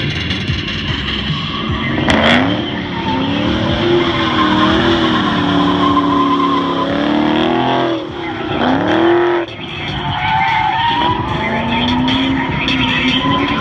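Holden VE SS-V Commodore's V8 revving hard, its pitch swinging up and down as it drifts, with the rear tyres skidding and squealing. The engine note drops away briefly twice in the second half, then climbs again.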